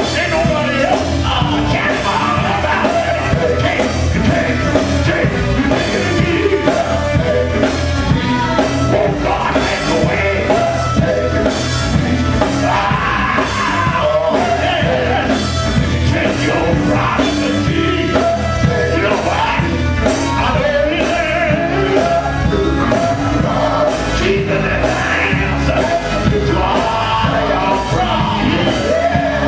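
Live gospel band playing: electric guitar, bass guitar and drums, with a lead singer singing into a handheld microphone.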